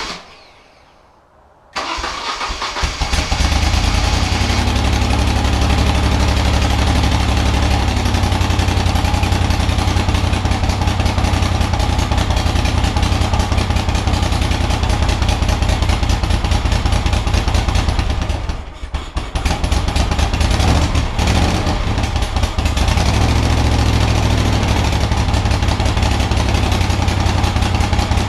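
1975 Moto Guzzi 850T's air-cooled V-twin on its first start after a full rebuild: a short burst right at the start, then the engine catches about two seconds in and runs steadily. About two-thirds of the way through it falters for a moment, then picks back up and keeps running.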